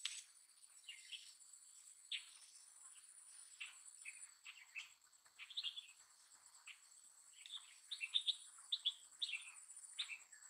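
Small birds chirping in short, quick calls, busiest in the second half, over a faint, steady, high-pitched insect trill.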